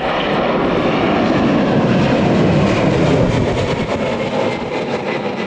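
Jet airliner engines passing close by, swelling to a peak about halfway through and easing off slightly toward the end, with wind buffeting the microphone.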